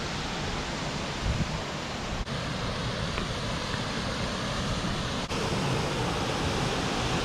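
Steady rushing of a waterfall, with wind buffeting the microphone.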